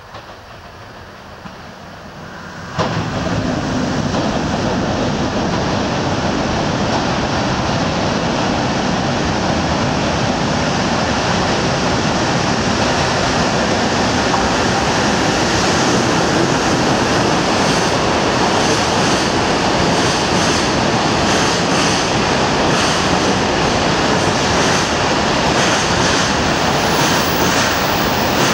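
JR Freight EH200 electric locomotive and its container wagons passing through a tunnel station. The train noise comes in suddenly about three seconds in and stays loud and steady, with repeated clacks of the wagon wheels in the second half as the wagons run past.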